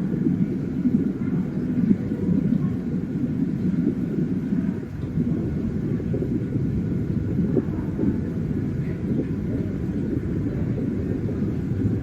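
Underwater ambience: a steady low rumble with no distinct events.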